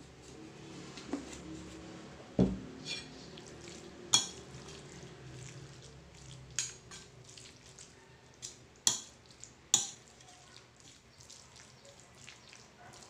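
Metal spoon and fork stirring a tuna filling on a plate, with a soft scraping and sharp clinks against the plate every second or two.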